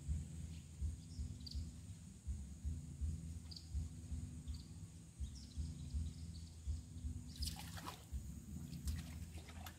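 Outdoor river-bank ambience: a fluctuating low rumble with a steady high hiss and faint scattered bird chirps. About seven and a half seconds in, and again near the end, come short noisy bursts as a fish is pulled in on the rod.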